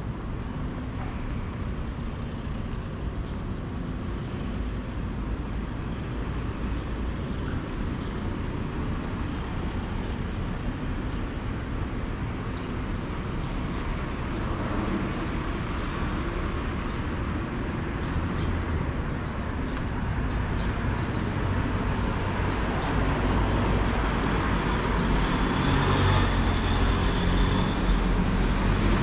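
Road traffic noise. A motor vehicle's engine grows steadily louder through the second half.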